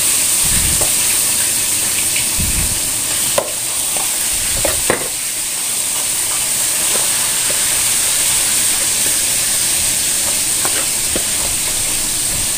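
A metal spoon tossing shredded raw cabbage, carrot and long beans in a large plastic bowl, mixing vinegar dressing into a raw vegetable pickle. There are a few sharp clicks of the spoon against the bowl, loudest between about three and five seconds in, all over a steady loud hiss.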